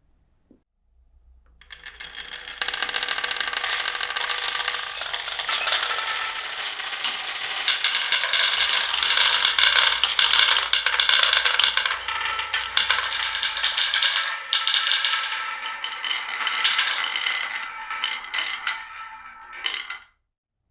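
Many marbles rolling and clattering together down a wooden marble run, a dense stream of clicks and knocks with some ringing, starting about a second and a half in and cutting off suddenly near the end.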